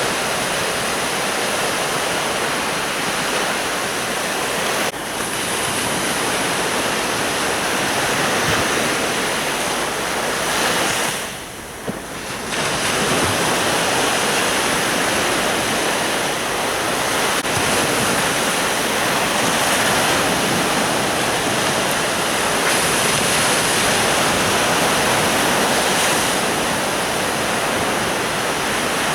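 Sea surf washing steadily onto a beach, with a brief lull about eleven seconds in.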